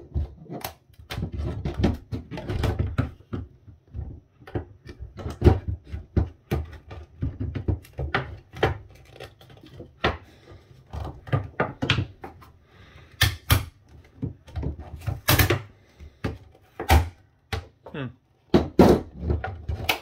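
Handling noise from a power adapter's stiff white plastic insulating sheet being peeled back from its circuit board: irregular crinkles, clicks and knocks, with a few sharper knocks past the middle. Side cutters clack on the tabletop as well.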